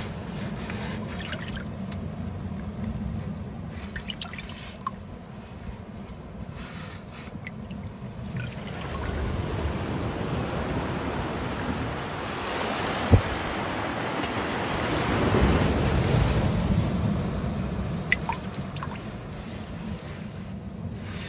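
Ocean surf washing against jetty rocks, with seawater splashing and dripping as fish are handled in a bucket. A louder wash builds in the middle and fades again, with a few sharp knocks.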